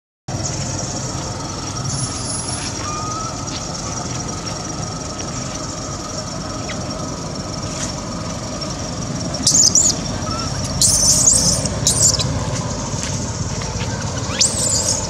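Baby macaque giving short, high-pitched wavering squeals, four times in the second half, over steady outdoor background noise.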